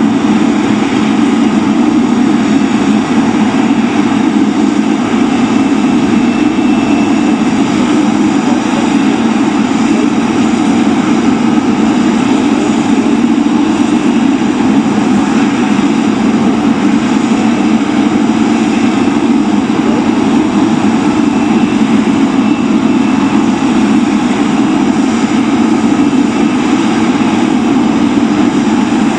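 Jet engines of a Boeing 777-300ER airliner running steadily as it taxis past: an even, loud rushing hum with faint high whining tones above it.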